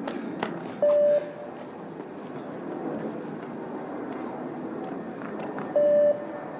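Beep-test signal beeps: two short, single-pitch electronic beeps about five seconds apart, each marking the end of a timed shuttle. They sound over a steady background of voices.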